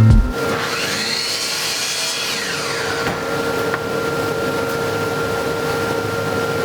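A power tool running steadily in a woodworking shop, a constant hum over an even hiss.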